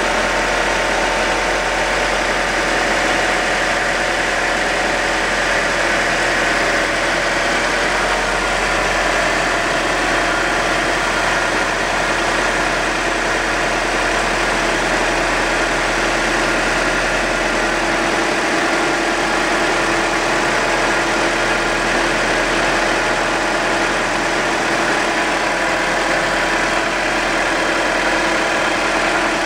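Audi A4 2.0T turbocharged four-cylinder engine idling steadily.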